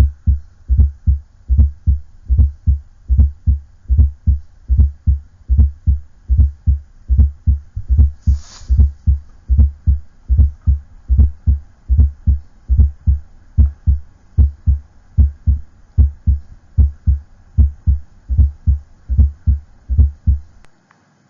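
Heart sounds at a steady rhythm of a little over one beat a second, low thuds of S1 and S2 with an S4 atrial gallop that comes and goes. The S4 is a late-diastolic sound falling just before S1. A brief hiss about eight and a half seconds in.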